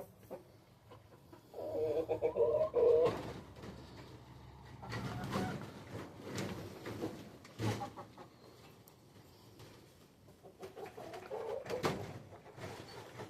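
Domestic chickens making low, cooing calls: a louder one about two seconds in and a fainter one near the end, with a few short knocks in between.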